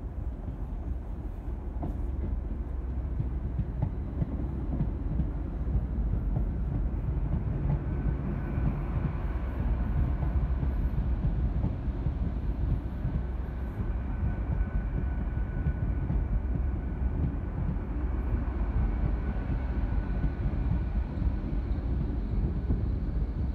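TransPennine Express Class 802 train moving slowly alongside the platform: a steady low rumble of the train, with a faint high whine through the middle.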